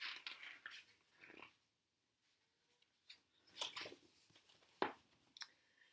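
Paper pages of a picture book being turned and flipped: faint rustling in two short spells with a few soft taps.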